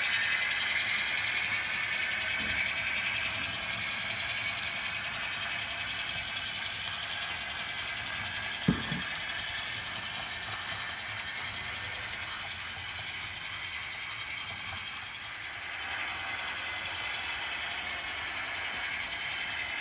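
Model freight train running on layout track: the steady whir of the model diesel locomotive and the rattle of the freight cars' wheels on the rails, with one sharp knock about nine seconds in.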